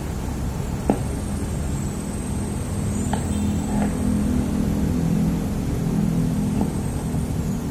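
Low engine hum of a motor vehicle going past, swelling through the middle and easing off near the end, with a single sharp click about a second in.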